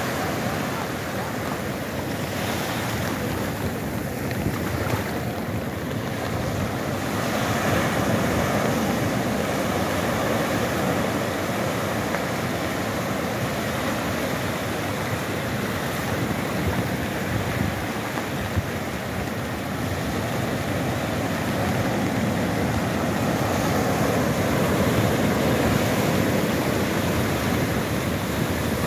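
Sea surf breaking and washing up a sandy shore in a steady rush, swelling a little louder about eight seconds in and again near the end as waves come in.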